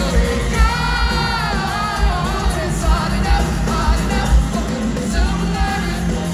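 Live pop-rock band playing loudly through an arena PA, with a singer holding a long, wavering note about a second in, over bass and drums, heard with the hall's echo from the seats.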